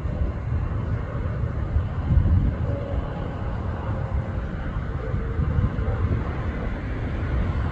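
Distant jet airliner, a Boeing 737, landing and rolling out, its engine noise a low rumble mixed with gusty wind on the microphone; a higher rushing sound builds near the end.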